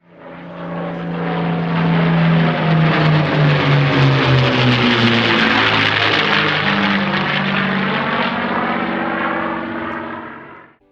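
Propeller airplane flying past: its propeller and motor sound swells to loudest about halfway through, then fades, shifting in pitch as it passes. It cuts off abruptly near the end.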